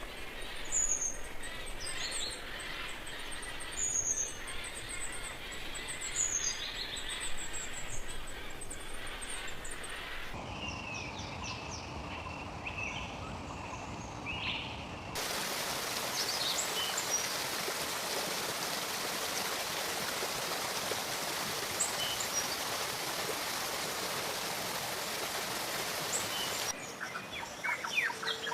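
Birds calling and singing in several recordings cut one after another: high chirps and short downward-sweeping whistles, then other calls, then a long stretch of steady hiss with only a few scattered chirps, and a quick run of repeated notes near the end.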